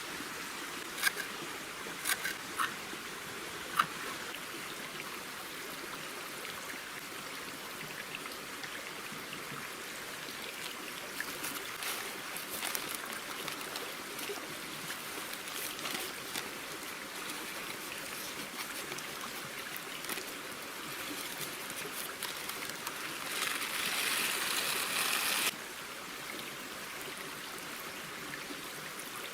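Campfire burning under a spit-roasting chicken: a steady crackling hiss, with a few sharp pops in the first few seconds. The hiss swells louder briefly near the end, then drops away suddenly.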